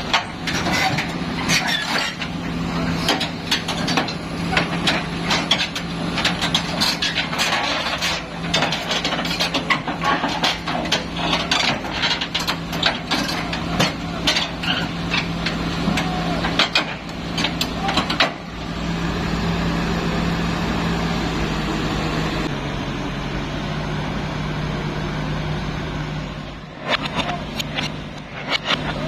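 Excavator's diesel engine running steadily, with many metallic clanks and knocks over the first two-thirds, then a steadier stretch. The engine note drops slightly about three-quarters of the way through.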